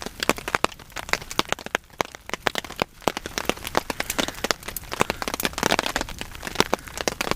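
Rain falling, with many irregular sharp taps of drops landing close to the microphone.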